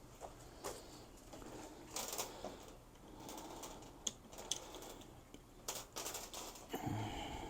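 Faint, irregular clicks and light taps of small hardware being handled, spaced unevenly about a second apart.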